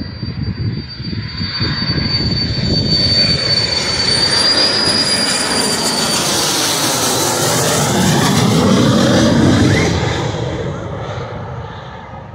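A USAF Thunderbirds F-16 Fighting Falcon jet passing low overhead. A steady high whine is joined by a rising rush of jet noise that is loudest about nine seconds in, then fades as the jet moves away.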